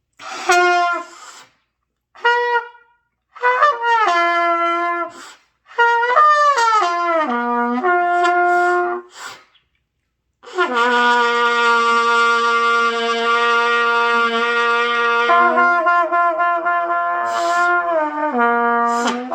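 Trumpet playing single notes: a few short blown notes, then a phrase stepping between pitches with some sliding falls, then a long held low note from about ten seconds in that jumps up to a higher held note.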